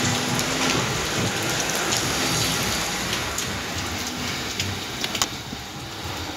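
Steady rain falling, with scattered light clicks and a sharper tap about five seconds in; the rain eases slightly after that.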